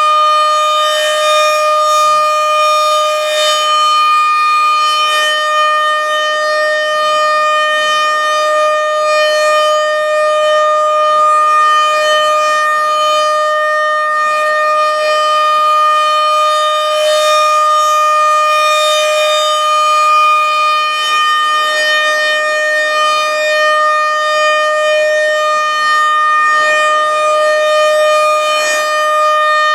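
RM-130 outdoor warning siren sounding a steady tone during its scheduled monthly test, holding one pitch with slow swells in loudness.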